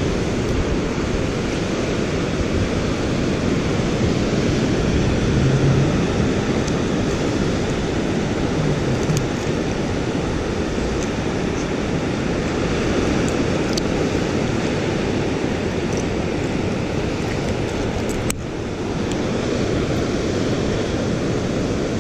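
Ocean surf washing steadily onto the beach, mixed with wind noise on the microphone.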